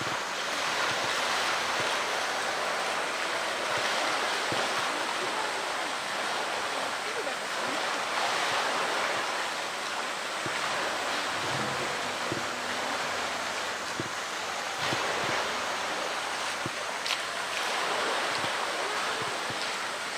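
Water splashing and sloshing as a polar bear swims and pushes a floating blue plastic drum around its pool, over a steady rush of water. A few short knocks come in the later part.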